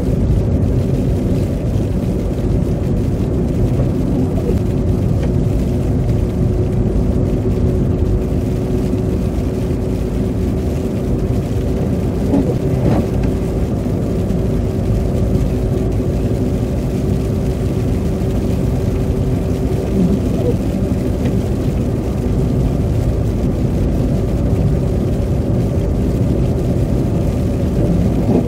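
Car cabin noise while driving on a slushy, muddy winter road: steady rumble of the tyres and engine with a steady hum running under it.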